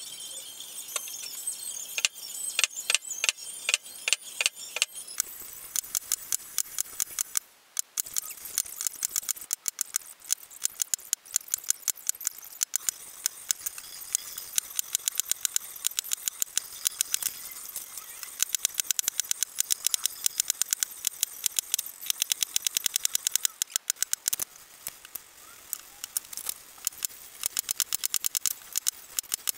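Brass mallet striking a metal leather punch, driving holes through leather laid on a wooden block: a long run of sharp taps, several a second, starting about two seconds in.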